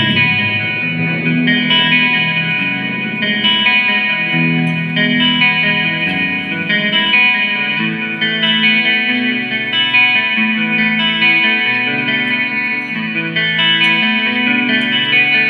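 Guitar music played through effects, with sustained notes changing every second or so.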